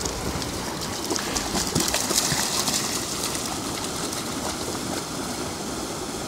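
Steady rushing of water spilling over a small weir into a shallow river, with light splashing as a husky runs through the shallows.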